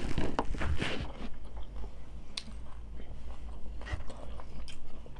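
Close-miked biting and chewing of tacos, with crunching. It is busiest in the first second or so, then thins out to a few separate crunches.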